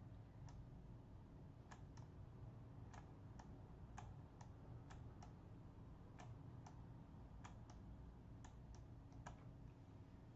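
Faint computer mouse clicks, about sixteen at an irregular pace, some in quick pairs, over a steady low hum.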